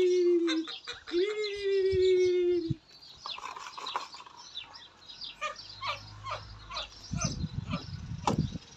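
Chicks peeping in many short high chirps, after two long drawn-out notes that fall slightly in pitch at the start. A single sharp knock comes near the end.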